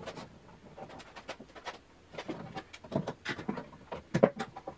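F-style bar clamps being handled and tightened on a wooden frame: a string of light, irregular clicks and knocks from the metal jaws and handles. The loudest knocks come near the end.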